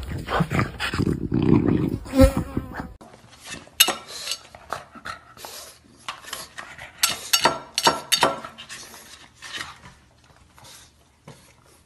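Small flat-faced dogs snorting and snuffling: a French bulldog for the first few seconds, then a pug at a plate of food, with short scattered sniffs and clicks that fade toward the end.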